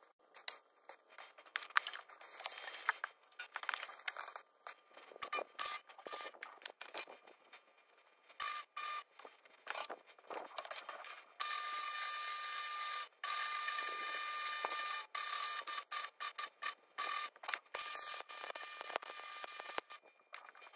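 Shop work on steel, edited together: clinks, knocks and short scrapes of metal being handled, then from about halfway a steady hiss with a thin high tone that cuts off suddenly several times.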